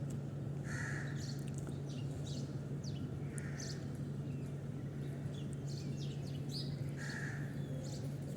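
Crows cawing: three short single caws a few seconds apart, with small birds chirping high over a steady low hum.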